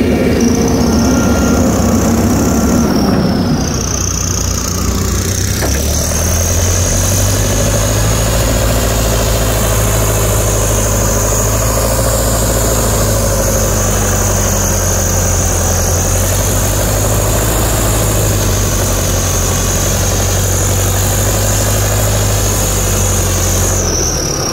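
Diesel engines of a JCB 3DX backhoe loader and a Landini DT85 4WD tractor running steadily under load as the loader tows the mud-stuck tractor on a strap, with a high thin whine held throughout. The engine note drops and settles about three and a half seconds in.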